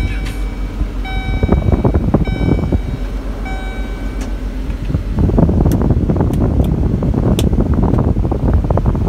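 Duramax V8 turbo-diesel of a 2005 Chevrolet C5500 idling just after start-up. A dashboard warning chime beeps several times in the first four seconds, and a few sharp clicks come later on.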